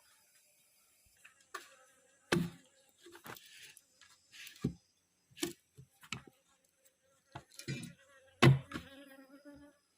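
A few irregular sharp knocks and clinks, the loudest near the end followed by a brief ringing tone.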